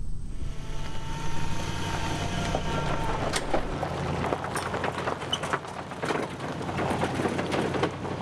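A full-size van towing a small utility trailer loaded with an ATV driving past on a gravel road: steady engine hum, with tyres crunching gravel and the trailer clattering, the crackle growing busier as it passes.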